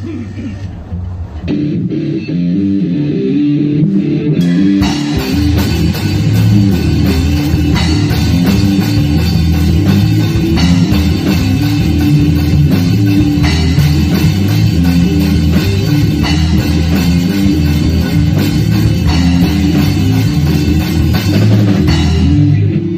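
Rock band playing live on electric guitar, bass guitar and drum kit. The guitars start about a second and a half in, the drums and cymbals join at about five seconds, and the full band plays steadily until it stops near the end.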